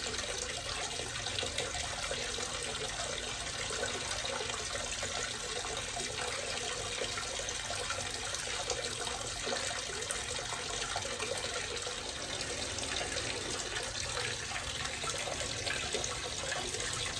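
A thin stream of water from a tap pouring steadily into a full plastic tub, splashing on the water's surface.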